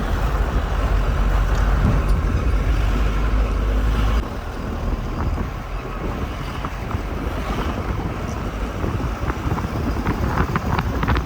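A car driving on a road, with steady engine and road noise. A heavy low rumble drops off suddenly about four seconds in, and a few sharp clicks come near the end.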